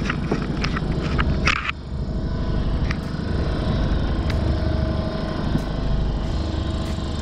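Boat engine running steadily while rope is hauled in over a pot hauler, with a quick run of sharp clicks and rattles in the first second and a half.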